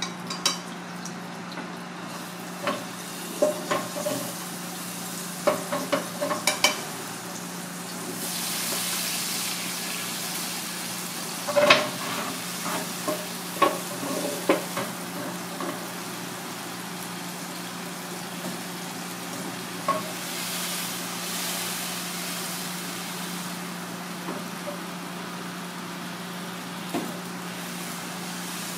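Sauce sizzling in a metal pan over a gas burner while chopsticks stir it, clicking and scraping against the pan in clusters through the first half. The sizzle swells twice, and a steady low hum runs underneath.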